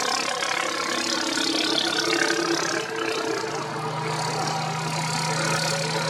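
Racing boat engines running: several steady engine notes at once over a hiss of water. A lower, steady engine note comes in about three and a half seconds in.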